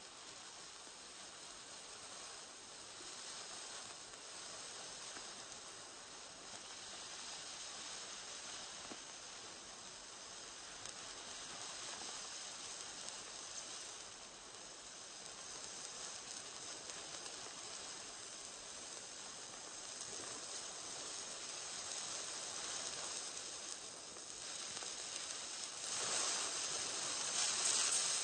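Burning fuse hissing and sizzling steadily, slowly growing louder and brighter toward the end.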